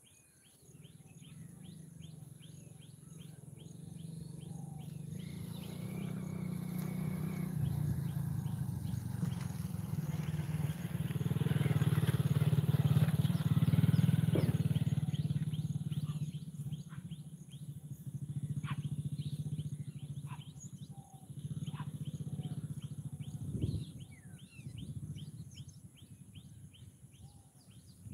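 A low engine drone that swells over about twelve seconds and then fades, as of a motor vehicle passing by. Small bird chirps repeat throughout.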